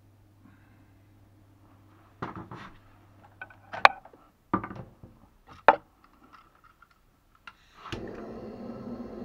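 Several sharp metal knocks and clanks at a small wood-burning potbelly stove as kindling is loaded through its firebox door. About eight seconds in, a steady hiss lasting about two seconds as a gas lighter flame is held to diesel-soaked kindling to light the stove.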